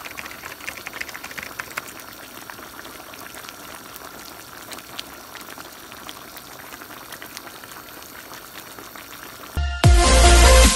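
A pan of pork pochero stew simmering, a steady bubbling hiss with many small pops. Near the end it cuts abruptly to loud electronic intro music.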